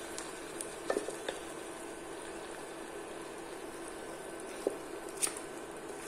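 Sheep head pieces sizzling in a pan of oil and spices while a wooden spoon stirs them, with a few light knocks of the spoon against the pan: a couple about a second in and two more near the end.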